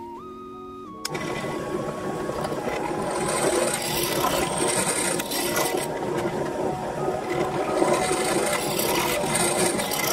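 3D-printed shredder, driven by a motor and a 3D-printed gearbox, starts up about a second in and runs with a dense mechanical noise from its cutters and gears. Background music with steady tones plays underneath.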